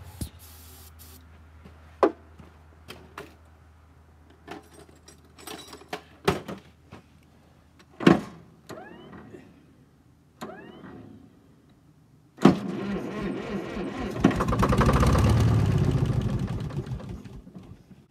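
A short spray-can hiss, then scattered metallic clicks and knocks of hand work. About twelve seconds in, the starter cranks the GM 2-71 two-stroke diesel of an Allis-Chalmers HD5 crawler for about five seconds, swelling and then dying away. It is being turned over with the fuel lines cracked loose at the transfer pump, to purge water from the fuel system.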